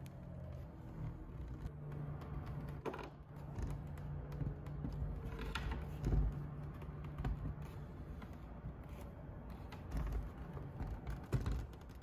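Hands gripping and turning the plastic housing of a Medify Air MA-22 air purifier: scattered light taps, clicks and rubbing, with a louder knock about six seconds in and a few more near the end.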